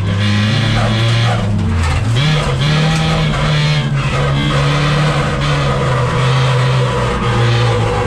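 Engine of a front-wheel-drive jokkis race car running hard under racing load, heard from inside the cabin, with the revs climbing about two seconds in.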